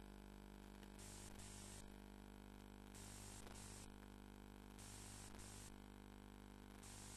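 Near silence: a low steady electrical hum and static hiss, with the hiss swelling briefly every couple of seconds.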